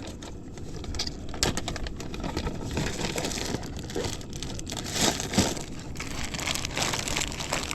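Rustling, crinkling and scattered clicks of fishing tackle being handled and rummaged through, busier in the second half.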